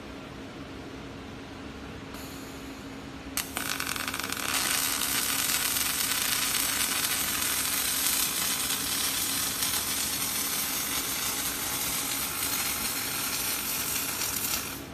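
Robotic arc welding: after a faint hiss, the arc strikes with a sharp crack about three and a half seconds in and then sizzles and crackles steadily for about eleven seconds before cutting off sharply near the end.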